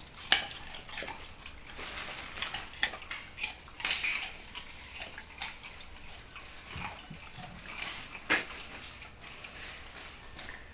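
German pointer crunching a raw carrot: irregular sharp crunches and wet chewing clicks, with the loudest bites just after the start, about four seconds in and about eight seconds in.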